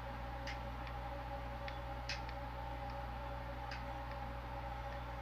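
Faint scattered clicks and taps of small plastic earbuds being handled, about eight over a few seconds, over a steady low hum.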